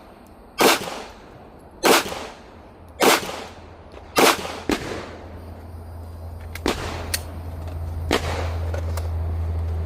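Glock 19 Gen 5 9mm pistol fired four times, a shot about every 1.2 seconds, each a sharp crack with a short echo. A few fainter cracks follow in the second half, over a low rumble that rises.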